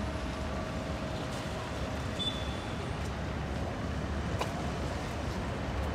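Steady outdoor city street background noise, mostly a low rumble, with a faint click about four and a half seconds in.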